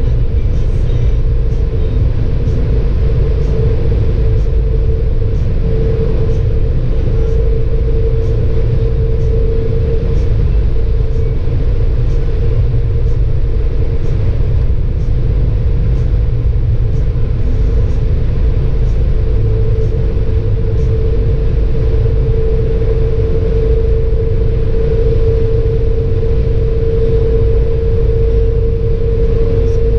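Inside the cabin of a Citroën C6 2.7 V6 HDi diesel at autobahn speed: a steady low rumble of road and drivetrain, with a constant hum held at one pitch over it.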